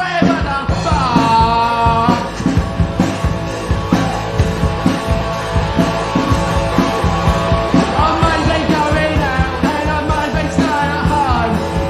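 Punk rock band playing loud and fast: electric guitar, bass and a driving drum beat, with a voice singing over it in short phrases.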